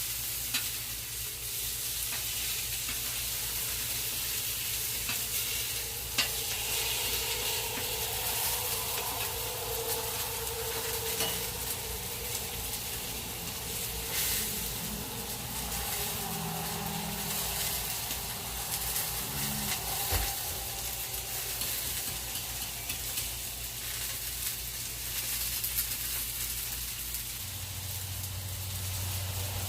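Cornstarch-coated chicken frying in a pan, a steady sizzle, with a couple of sharp clicks.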